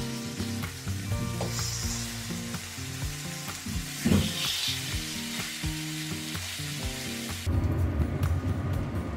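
Thick rounds of new onion sizzling in hot oil in a frying pan, with a sharp flare of sizzle about 4 seconds in as another slice is laid into the oil. About three quarters of the way through the sizzle cuts to a duller, lower sound.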